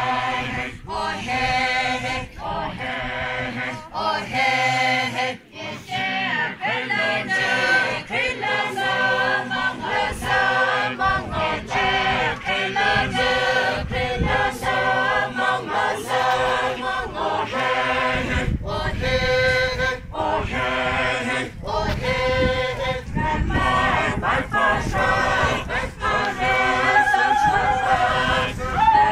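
A group of voices singing a traditional folk chant together, unaccompanied, in short phrases that repeat every second or two.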